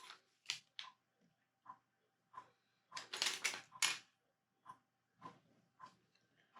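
Small plastic Lego pieces clicking and rattling as they are handled and sorted, in scattered single clicks with a quick run of clatter about three seconds in.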